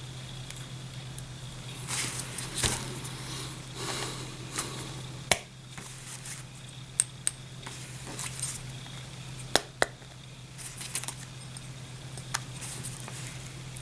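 Hands handling a small camera and its packaging: scattered clicks, taps and short rustles, over a steady low hum.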